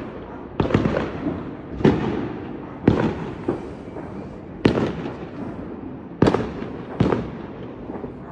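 Fireworks going off: a string of about seven sharp bangs, roughly one a second at uneven spacing, each dying away, over a steady rumble and crackle of further fireworks.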